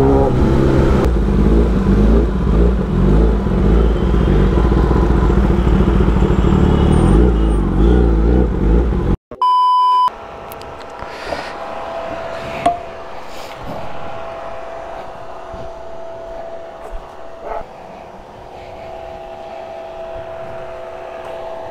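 Kawasaki Ninja ZX-10R inline-four through an SC Project full-system exhaust, ridden hard, its revs rising and falling through gear changes with the auto-blipper blipping the downshifts. The sound cuts off suddenly about nine seconds in, and a short beep follows. After that there is only a much quieter steady hum.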